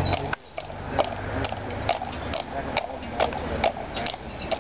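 Hooves of a draught horse walking on a bitumen road: a steady clip-clop of about two hoofbeats a second.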